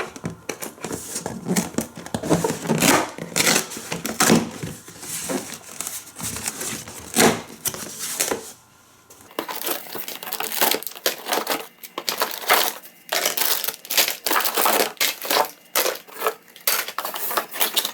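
Cardboard box and plastic packaging being opened and handled: irregular crinkling, tearing and scraping, with a short pause partway through.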